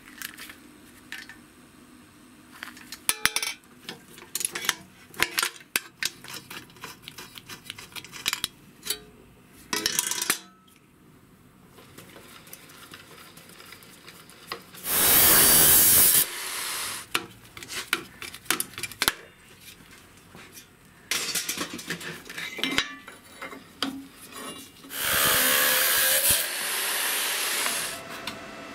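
Metal parts and hand tools being handled and knocked together, with scattered clinks and knocks. Twice a louder steady hiss-like sound comes in, for about a second in the middle and for about three seconds near the end.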